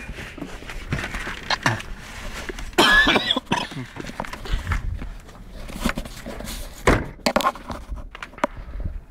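A mobile phone being handled close to its microphone: irregular rustles, clicks and knocks, with a brief higher-pitched sound about three seconds in and a sharper knock about seven seconds in.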